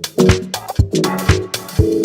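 Instrumental dance music with a steady drum beat, about two beats a second, over bass and chords.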